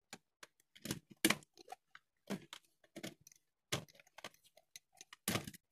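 Irregular small clicks and crackles of hands handling freshly spliced wires and electrical tape, with a louder cluster near the end.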